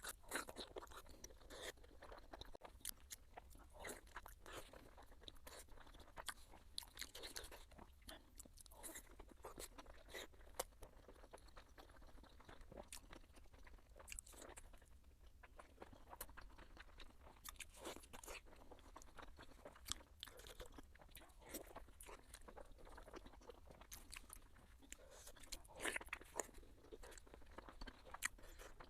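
Faint eating sounds: a steady run of small crunches and chewing from someone biting and chewing food, with a louder cluster of crunches near the end.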